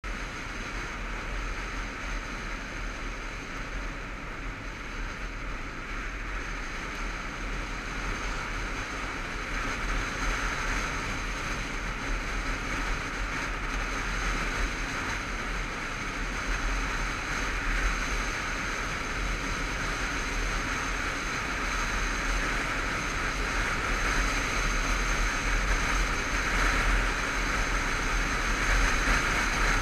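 Motorcycle riding along an open road, heard from a camera on the bike: a steady rush of wind over the microphone with the engine running underneath. It gets gradually louder through the second half.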